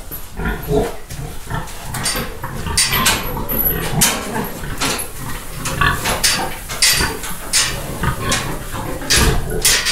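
An agitated sow grunting over and over, upset at her piglets being taken away, with short rattles and clanks of a metal gate panel.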